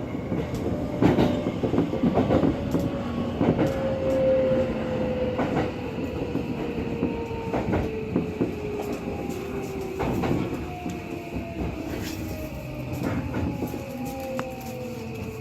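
Electric commuter train running over rail joints with a clickety-clack of wheel clicks, while a thin motor whine slowly falls in pitch. It grows gradually quieter toward the end.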